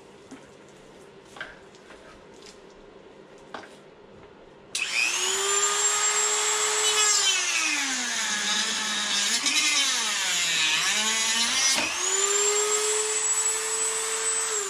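A high-speed rotary tool starts abruptly about five seconds in and cuts the plastic battery box. Its whine drops in pitch as the bit bites into the plastic, then climbs back to full speed about twelve seconds in. Faint handling clicks come before it starts.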